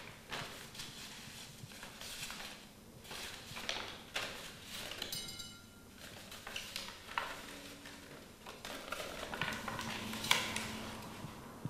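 Scattered clinks, knocks and rustles of hands handling paper and working in a ceramic bowl. There is a brief ringing tone about five seconds in.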